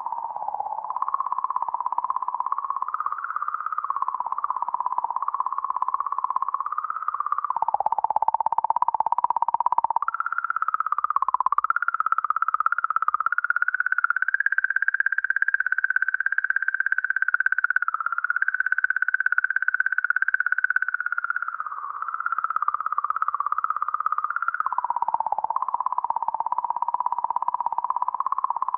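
Rosetta's sonified magnetometer recording of Comet 67P 'singing': the comet's magnetic field oscillations at 40–50 millihertz, sped up 10,000 times. It comes out as a rhythmic, warbling electronic tone around 1 kHz whose pitch wanders up and down, dipping twice and rising higher in the middle.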